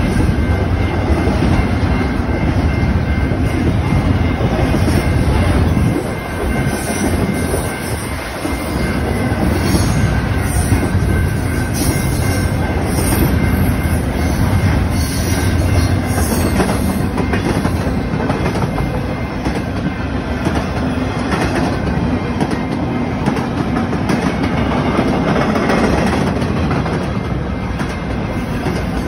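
Union Pacific freight train's double-stack container cars rolling past at a grade crossing: steady, loud rumble of steel wheels on the rail with clacking over the joints. A thin, steady high tone runs over the rumble.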